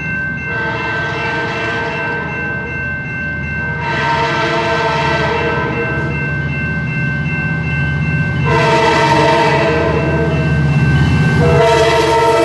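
Amtrak F59PHI diesel locomotive sounding its air horn in repeated long blasts as it approaches, over the growing rumble of its diesel engine. A steady high ringing tone runs underneath and stops near the end.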